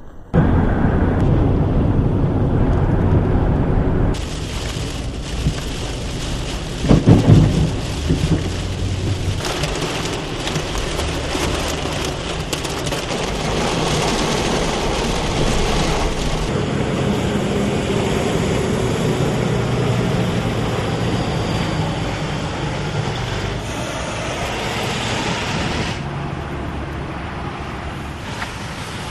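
Thunderstorm: thunder rumbling over steady rain, with a sudden loud peak about seven seconds in.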